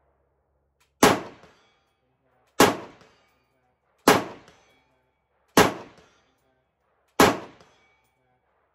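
Five rifle shots from a Kalashnikov USA KR-103SFS, an AK-pattern semi-automatic rifle firing 7.62x39mm, spaced about a second and a half apart, the first about a second in. Each is a sharp crack followed by a short echo.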